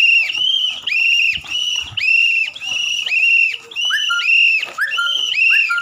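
Plastic whistle blown in short, even blasts at one high pitch, about two a second, a steady marching beat for a walking line of schoolchildren. A lower tone rises and holds a few times near the end.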